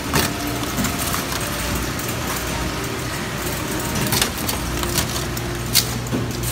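Steady hum and noise of a busy shop, with a few short clicks and knocks scattered through it.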